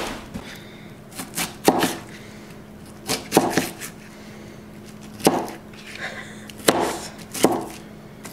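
Thick-bladed TOPS XcEST Alpha survival knife chopping an onion on a plastic cutting board: about eight irregularly spaced knocks of the blade striking through onto the board.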